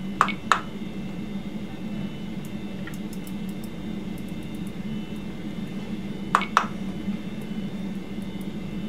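Navigation knob of an Edwards Vigilance II monitor being clicked as a hemoglobin value is dialled in: a sharp double click just after the start and another about six seconds in, with a few faint ticks between, over a steady low hum.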